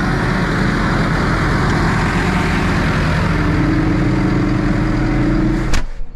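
Valtra tractor's diesel engine running steadily at idle, heard loud from beside the open cab. Near the end a single sharp bang, the cab door shutting, cuts the engine down to a muffled hum.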